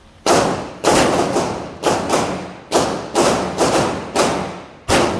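Semi-automatic pistol fired in a rapid string of shots, about two a second, each sharp report followed by a short echo that dies away.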